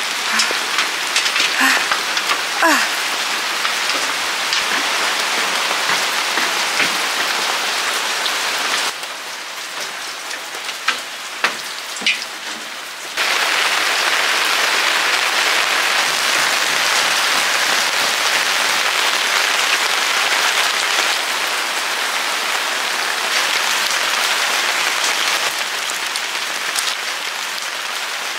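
Heavy rain falling steadily: a dense hiss of drops on surfaces, with a few light taps and clicks. The rain drops quieter for a few seconds around the middle, then comes back louder.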